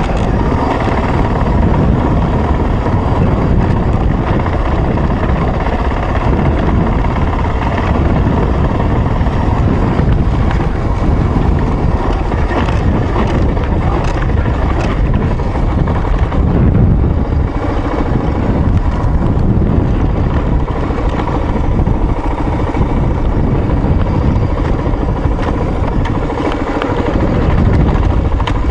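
Off-road motorcycle engine running steadily while riding along a dirt trail, with heavy wind and trail noise.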